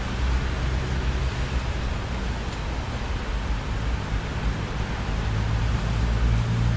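Steady rain hiss with a low rumble of thunder underneath, the rumble easing off mid-way and swelling louder again near the end.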